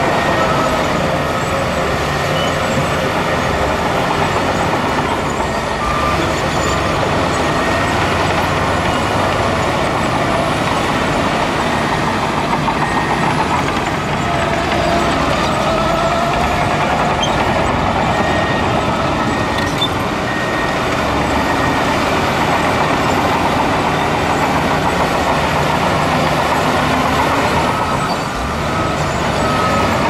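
Heavy diesel earthmoving machinery, a bulldozer and dump trucks, running steadily under load while working soil. Short high beeps come and go over the engine noise.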